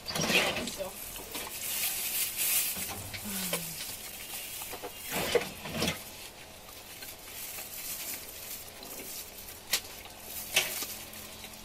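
Eating sounds: food being stirred and handled in a takeout container, with rustling, hissing bursts early on and again about five seconds in, and a few sharp clicks near the end.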